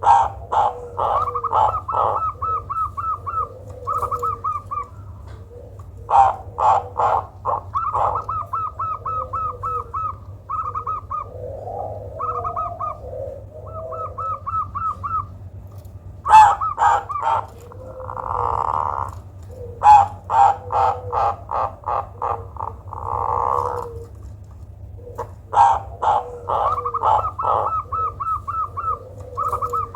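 Zebra dove (perkutut) calling: repeated phrases of loud clipped notes running into rapid trills, with two longer, noisier calls near the middle. It is an unusual perkutut voice, said to work well as a lure call for other perkutut.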